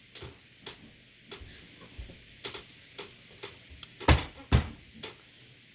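Scattered small plastic clicks and knocks as the last nut cover is fitted onto a gaming chair's bolt, with two loud knocks about four seconds in, half a second apart.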